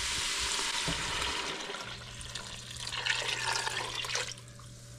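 Chicken stock poured from a glass pitcher into a stainless stockpot of hot sautéed vegetables, a steady splashing pour over the sizzle of the pan. The pour thins and trails off about four seconds in.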